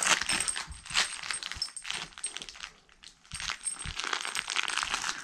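Rapid light metallic jingling and clinking, with rustling and soft knocks, as a beagle puppy tugs and shakes a plush toy; it stops briefly just before the middle, then carries on.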